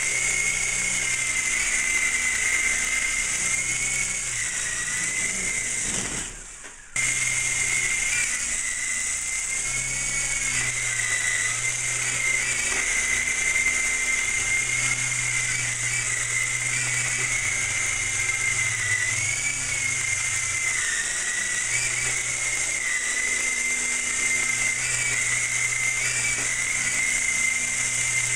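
Small electric RC model helicopter (an Apache model) in flight: a steady high motor whine that wavers slightly in pitch, over rotor hiss and a low hum. The sound cuts out for about a second around six seconds in and comes straight back.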